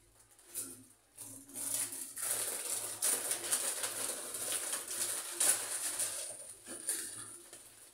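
Noodles and ingredients sizzling in a hot wok over a gas burner as they are added and stirred, a dense crackling hiss that starts about two seconds in and fades near the end.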